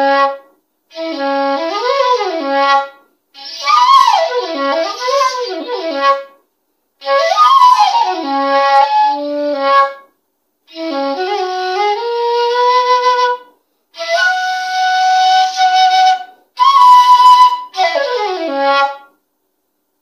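Seven-hole 1.9 shakuhachi in C#, with a coated bore, played in a series of short phrases broken by breaths. Held notes alternate with notes that slide up and down in pitch.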